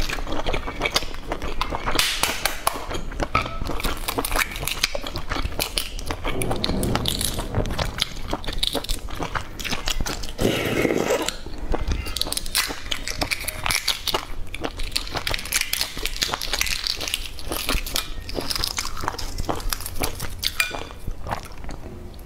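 Close-miked mouth sounds of chewing egg, together with the crackle and small clicks of eggshell being cracked and peeled away by fingers, dense and continuous.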